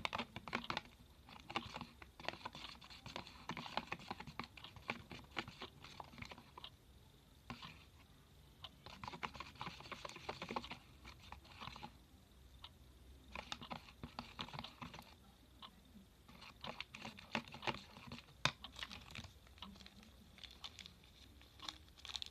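Homemade slime being mixed and kneaded by hand: clusters of sticky, crackling clicks that come and go with short pauses.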